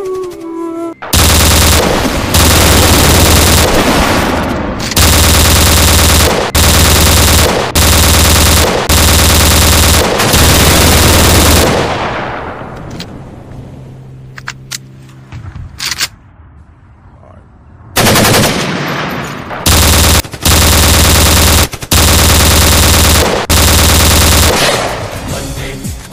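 Long, loud bursts of machine-gun fire, about seven in quick succession. They fade away slowly with a couple of single shots, then four more long bursts start about eighteen seconds in.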